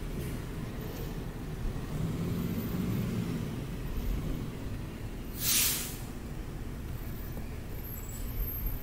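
Garbage truck running a few houses away, a low rumble, with one short, sharp hiss of its air brakes about five and a half seconds in.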